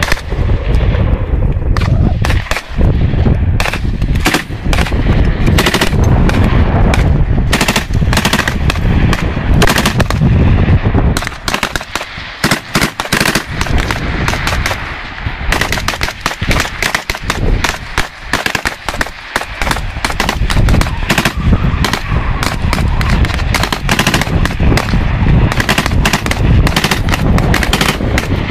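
Dense machine-gun and rifle fire from several weapons, bursts and single shots overlapping almost without a break. The firing thins out about twelve seconds in, then builds up again.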